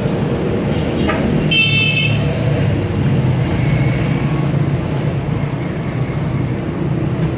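Steady road traffic, engines running, with a vehicle horn sounding briefly about a second and a half in.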